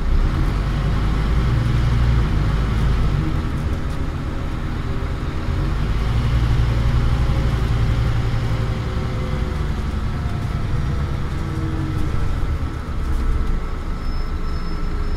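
Scania OmniCity bus's five-cylinder diesel engine running hard under way, heard from inside the saloon with a heavy low rumble. About ten seconds in the engine note slides down in pitch.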